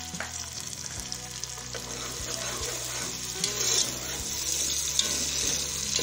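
Onions, tomato and ginger-garlic paste sizzling in hot oil in a steel pot with a steady hiss, stirred with a metal spoon that knocks against the pot a few times.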